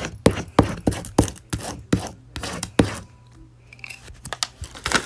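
Clear plastic protective film being peeled off and handled on a Cricut fabric cutting mat: an irregular run of sharp crackles and clicks, then a short rustling rush at the end.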